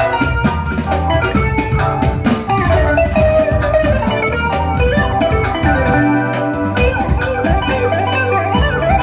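Live instrumental music on electronic keyboards, including a Roland Fantom X6 synthesizer: a winding lead melody with pitch glides over a steady drum beat and heavy bass.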